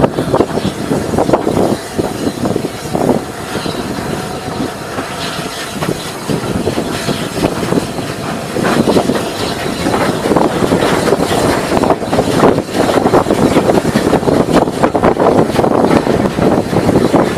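Steam-hauled train running and gathering speed, heard from just behind the locomotive's tender: the clatter of wheels over rail joints and points mixed with the running of the locomotive, growing louder over the second half.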